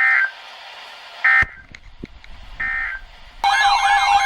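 NOAA Weather Radio end-of-message signal: three short buzzy bursts of digital data tones about 1.3 seconds apart, closing the previous alert. About three and a half seconds in, a loud warbling electronic alert tone starts, announcing the next warning.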